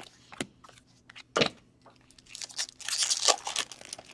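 Trading cards set down with two sharp taps, then a foil trading-card pack wrapper crinkling and tearing open for about a second and a half, near the end.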